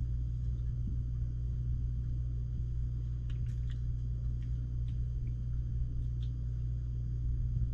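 Steady low electrical hum, with a few faint small clicks and taps in the middle of the stretch.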